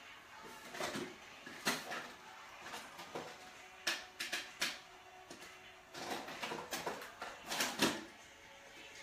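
Irregular clicks, taps and rustles of small objects being picked up, set down and moved about, with a quick cluster of knocks about four seconds in and another near the end.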